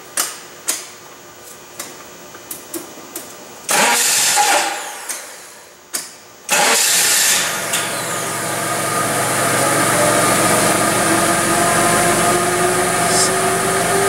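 Four-cylinder forklift engine being started: a few sharp clicks, then a burst of cranking that dies away. About six and a half seconds in, the engine catches and settles into a steady idle, with a whine that slowly rises in pitch.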